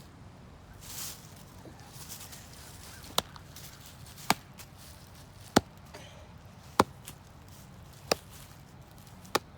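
Six sharp chopping knocks at an even pace, about a second and a quarter apart: repeated blows struck on wood.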